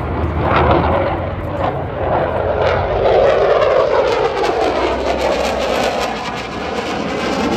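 Airplane flying past overhead, its engine sound swelling and then sliding lower in pitch as it passes.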